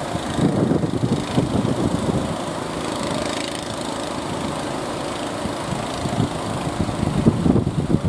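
A small boat engine running steadily under wind buffeting the microphone, with rough surf in the background.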